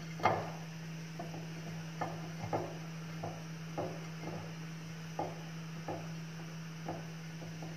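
Hands rubbing and fluffing shredded kataifi dough on a plate to work ghee into the strands: a soft dry rustle with each stroke, roughly once or twice a second, over a steady low electrical hum.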